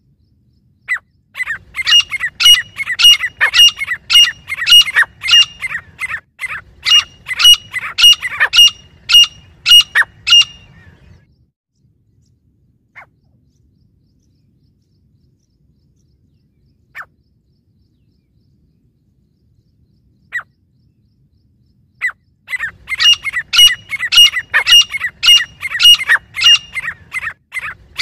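Grey francolin calling: a loud, rapid run of sharp repeated notes, about two a second, for roughly ten seconds. A pause follows with only a few single notes, and the run starts again about 22 seconds in.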